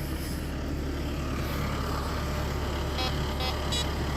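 Engine of a piece of log-handling equipment running steadily with a low drone, and a few short high squeaks near the end.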